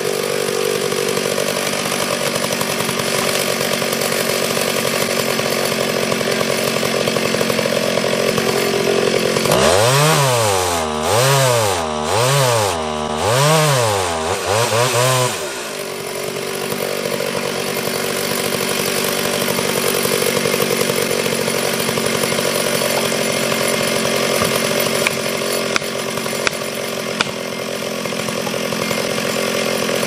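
Chainsaw running at full throttle while cutting into a tree trunk. A third of the way in, the saw comes out of the cut and is revved up and down several times. It then settles back into steady cutting.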